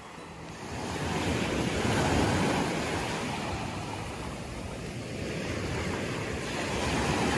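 Small sea waves breaking and washing up a sandy shore, swelling about a second in, easing off midway and building again near the end.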